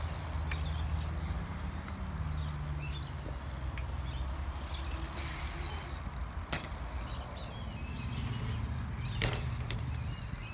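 Small BMX bike's tyres rolling on a concrete skatepark bowl, a steady low rumble that rises and falls with speed, with a few sharp clicks or knocks from the bike.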